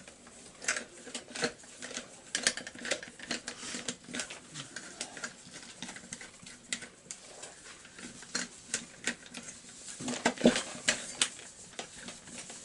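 Irregular light metallic clicks and taps of a small hand tool and bolts being screwed into a chainsaw's engine housing, with a quick cluster of louder clicks about ten seconds in.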